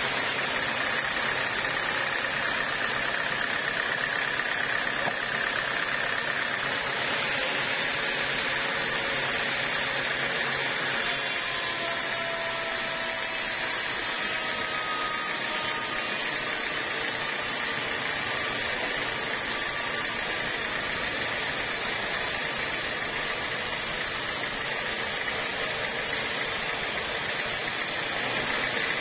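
Band sawmill running steadily, its blade cutting through a block of teak.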